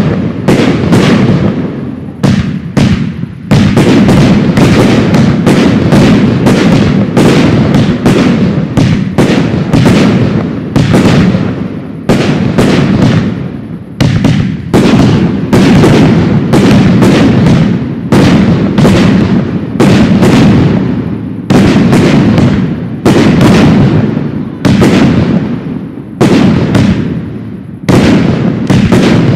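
Professional aerial fireworks display: a rapid, continuous barrage of shell launches and bursts, several loud bangs a second, each trailing off in an echo.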